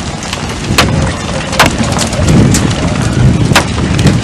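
Strong wind buffeting the microphone: a loud, continuous low rumble with scattered sharp ticks and knocks.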